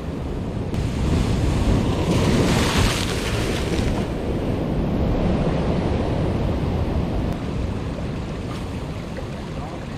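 Sea swell breaking on a rocky reef: a wave crashes and surges through the rocks in white water about two to four seconds in, then settles into a steady wash. Wind buffets the microphone.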